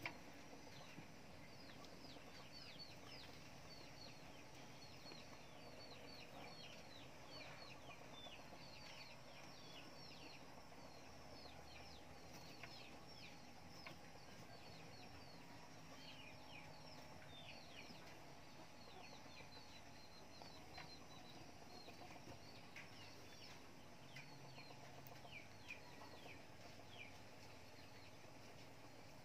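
Faint chirping of birds: many short, falling peeps, several a second, thinning out in the last few seconds.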